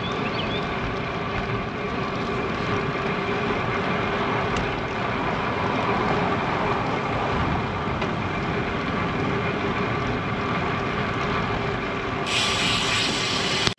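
Steady wind and tyre noise from a road bike rolling along a concrete road, heard through a bike-mounted action camera's microphone. The sound turns brighter and hissier about a second and a half before the end.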